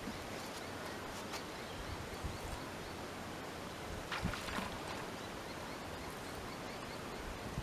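Steady outdoor background hiss with a few faint, brief knocks and rustles, the clearest about four seconds in.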